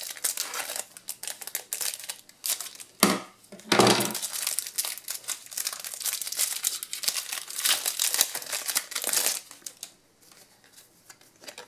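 Foil wrapper of a Match Attax trading-card booster pack crinkling as it is cut open with scissors and the cards are worked out of it, with two louder rustles about three and four seconds in.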